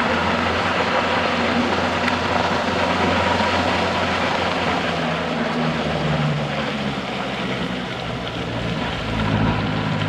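Truck engine running on the road under a steady rushing noise, its pitch shifting a few times as the engine speed changes.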